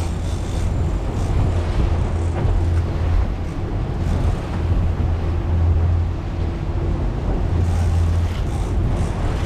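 World Cat 325CC catamaran's engines running with a steady low hum, with wind buffeting the microphone and sea water washing alongside.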